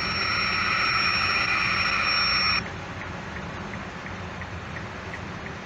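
Emergency Alert System SAME digital data burst on NOAA Weather Radio: a harsh, buzzy two-tone screech that lasts about two and a half seconds and cuts off suddenly. Low radio hiss follows.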